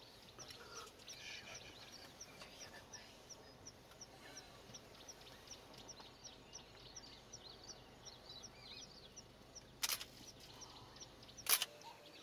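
Quiet bush ambience with a steady run of short, high, falling chirps, about three a second, from a small creature calling. Two sharp knocks near the end.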